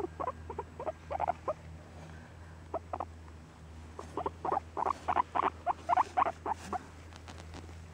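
Long-haired guinea pig making short, repeated squeaks: a few at first, then a quick run of them over the last few seconds.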